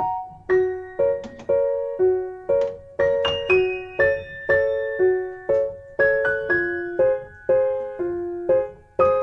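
Background music: soft piano-like notes played one after another at about two a second, each fading before the next.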